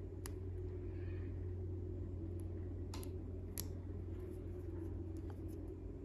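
Small metal clutch parts of a model engine being handled and fitted by hand: a few light, sharp clicks and taps, spaced a second or more apart, over a steady low hum.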